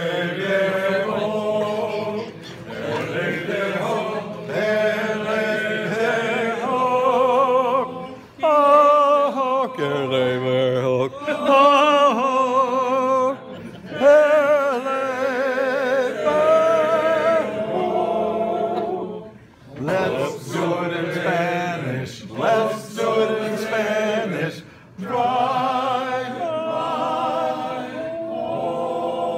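A group of men singing a birthday song together, in phrases with short breaks between them.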